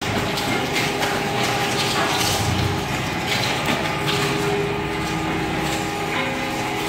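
Electric-driven circuit board shredder and its feed conveyor running, a steady machine noise with a faint hum and scattered rattling and clattering.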